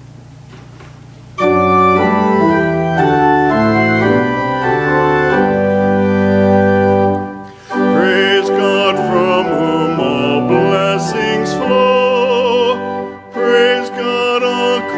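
Church pipe organ starting to play held chords about a second and a half in. About eight seconds in, a solo singer joins over the organ, singing with a wide vibrato.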